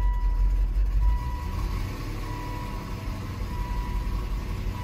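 2005 Volvo XC90's 4.4-litre V8 idling with no throttle, running louder for about the first second and then settling lower. The engine is not liking its newly fitted mass airflow sensor while the engine computer adapts to it.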